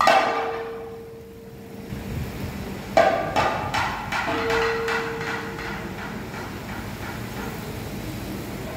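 Kathakali percussion on chenda and maddalam drums: a loud strike at the start rings out, then a quick flurry of strokes about three seconds in, then softer steady playing. A steady held tone sounds underneath.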